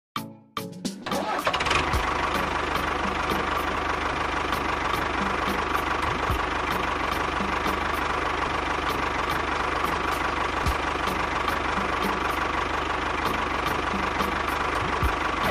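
A small motor running steadily, starting up about a second and a half in, over background music with a ticking beat.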